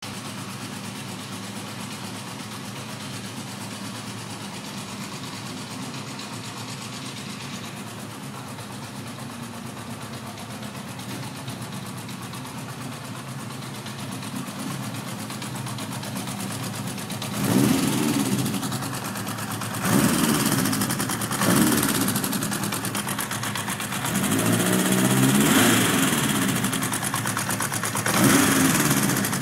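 Honda CB900 Bol d'Or's air-cooled inline-four engine idling steadily, then revved with the throttle: three short blips, a longer rev that rises and falls, and one more blip near the end.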